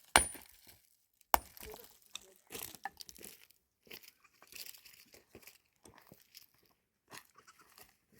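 Two sharp knocks about a second apart, followed by irregular crunching and rustling.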